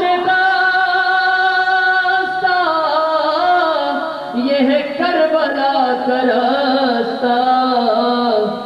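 A man singing an Urdu manqabat (devotional qasida) in praise of Ali. He holds one long note for about two seconds, then draws the line out in wavering, ornamented turns without words.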